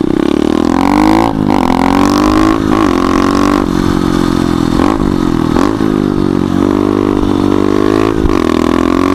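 Pit bike's small single-cylinder engine revving hard while ridden, its pitch climbing and dropping back several times as the throttle and gears change.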